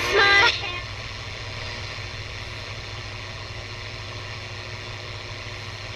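GE P975F transistor radio on FM: a snatch of a station's music cuts off about half a second in, then a steady static hiss of an untuned band, with a low hum under it.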